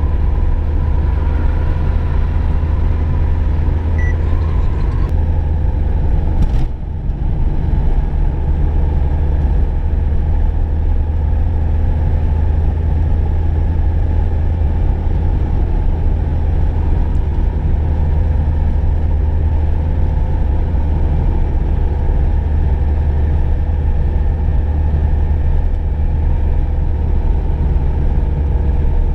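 Inside the cabin of a VW Golf II driving at steady speed: a constant low engine drone and road rumble with a steady hum. About six and a half seconds in there is a short click and a brief dip in the sound.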